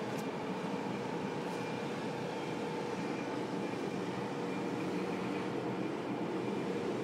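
A steady low drone with a few faint held tones, growing slightly louder about five seconds in. The uploader presents it as the 'creaking of the earth', one of the unexplained 'strange sounds' in the sky.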